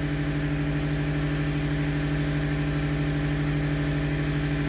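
Engine-driven power generator running steadily at constant speed: an even hum with a low regular pulse underneath. It runs on after being disconnected from the inverters.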